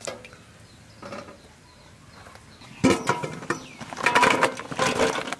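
Brinjal slices dropping one after another into an empty aluminium pot, knocking and clattering on the metal with a short ring. A first sharp knock comes about three seconds in, then a quick run of them, the loudest between four and five seconds in.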